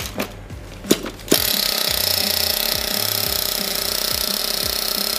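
An SH .28 glow-fuel nitro engine in a 1/8-scale RC monster truck is pull-started. There are a couple of quick pulls on the starter, then it catches a little over a second in and keeps running steadily.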